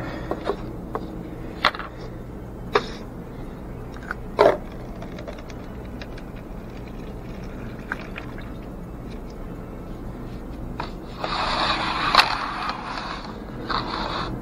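Liquid pouring for about two seconds, beginning about eleven seconds in, with a short second spurt near the end. Before it come scattered clicks and knocks of small objects being handled, over a steady electrical hum.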